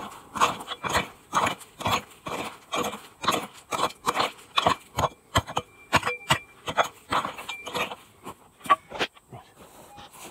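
A prospector's pick striking and scraping into hard, rocky gravel, about two blows a second, stopping about nine seconds in.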